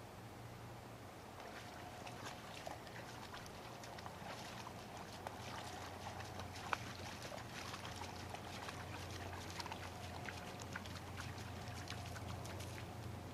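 Faint, irregular splashing and sloshing of a Labrador retriever's legs wading through shallow water as it retrieves a shot duck, over a low steady hum. A single sharp click a little past the middle stands out as the loudest moment.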